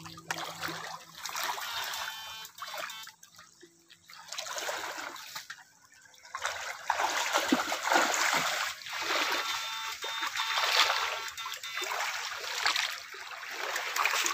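Water splashing and trickling in a shallow stream as a person wades through it in rubber boots, with water pouring out of a lifted hand net at the start. The splashing comes in uneven surges and gets louder from about halfway through.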